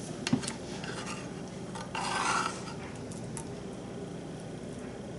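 A kitchen utensil clinking and scraping against cookware while sautéed onions are spooned out: a few light clicks, then one short scrape about two seconds in and another click a second later.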